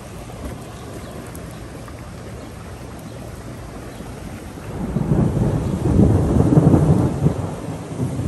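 Steady rain falling, then about five seconds in a loud rolling rumble of thunder that lasts about three seconds.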